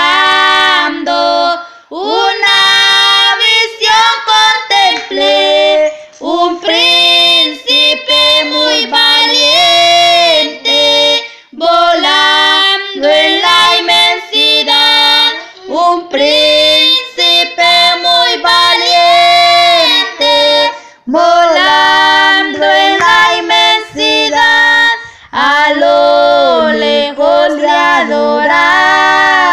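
A high solo voice singing a Spanish worship song in long sung phrases, with held, wavering notes and short breaks between lines.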